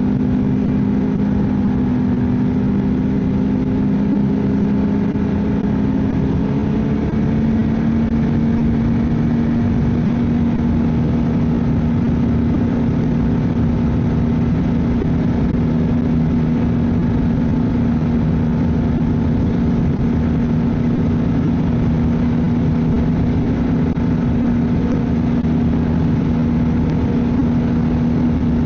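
Ski-Doo snowmobile engine running steadily at trail-riding speed, a continuous drone whose pitch shifts slightly about seven seconds in.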